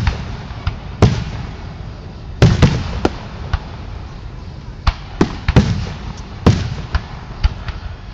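Aerial fireworks bursting in quick, irregular succession: about a dozen sharp bangs, several with a rumbling echo after them.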